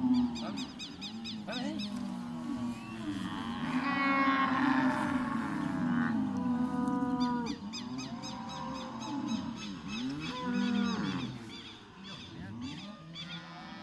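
A bull bellowing over and over while it is held down and castrated: long, low, drawn-out calls, the loudest about four to five seconds in.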